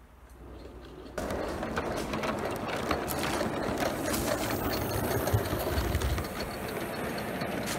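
Gauge 1 live-steam J65 tank locomotive with a wick burner, running close by at the head of a goods train: a rapid, steady mechanical clatter of motion and wheels on the track over hiss. It starts suddenly about a second in.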